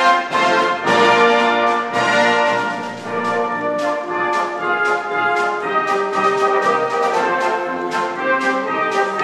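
Salvation Army brass band playing a piece: full brass chords, tubas under the higher horns, moving along with a steady rhythmic pulse.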